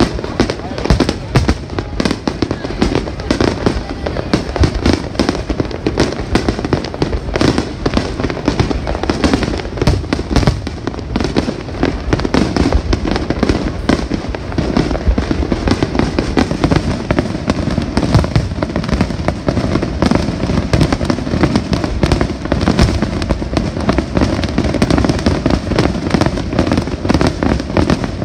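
Aerial fireworks going off in a dense, unbroken barrage of bangs and crackles.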